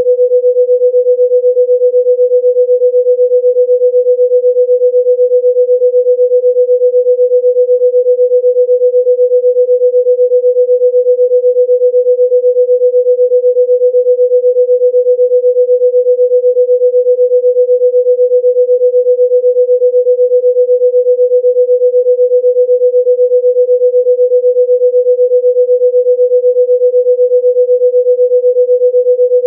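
A single steady pure tone pitched at about 500 Hz, with no overtones, held unchanged throughout: an electronic sound played as a healing tone.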